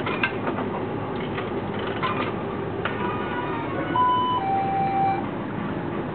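Electronic beeps from a crane game machine: a few held notes, the loudest about four seconds in, stepping down in pitch, over a steady low hum and some light clicks.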